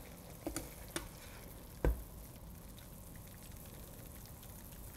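Soy-ginger sauce faintly sizzling in the pan just off the heat, with a few light clicks of metal tongs lifting chicken thigh pieces into a perforated metal tray; the loudest, a dull knock, comes a little under two seconds in.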